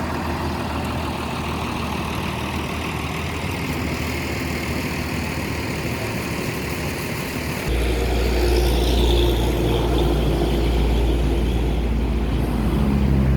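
Tour bus diesel engine running at idle. About eight seconds in, the engine rumble turns suddenly louder and deeper.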